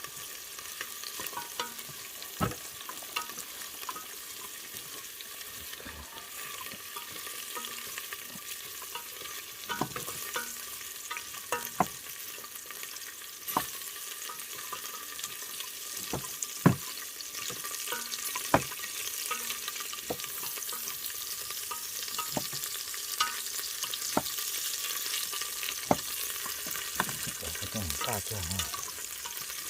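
Aromatics (garlic, lemongrass and galangal) sizzling in a pan as they are stirred, with the utensil clacking against the pan now and then.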